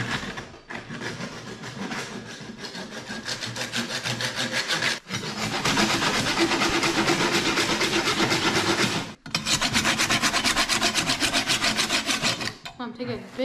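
Hand saw cutting through caribou skull bone in quick, steady back-and-forth strokes, with two brief pauses about five and nine seconds in, stopping near the end.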